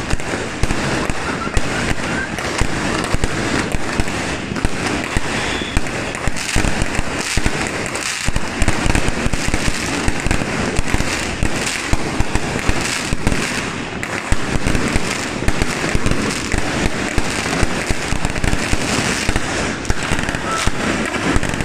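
Aerial fireworks being set off close by, shot after shot: a rapid, unbroken run of bangs, pops and crackling bursts.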